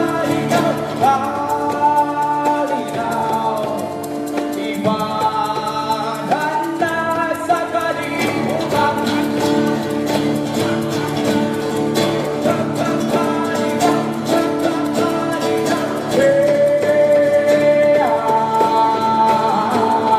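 Live acoustic band: a strummed acoustic guitar and a hand drum under lead and backing vocals, with the singers holding long notes. The music gets a little louder near the end.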